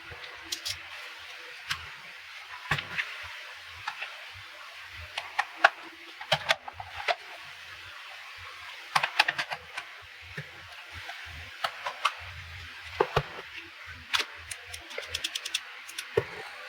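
Irregular sharp clicks and taps of small plastic parts and tools being handled, some in quick clusters, over a low steady hiss.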